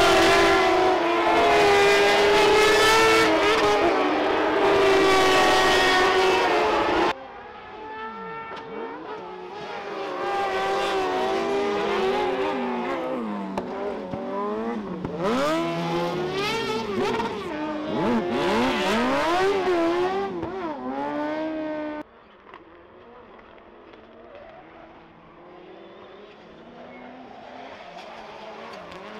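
Rallycross cars racing at full throttle. Open-wheel buggies pass close, their engines rising and falling in pitch through gear changes. After about 22 seconds a pack of rally saloon cars is heard fainter and further off.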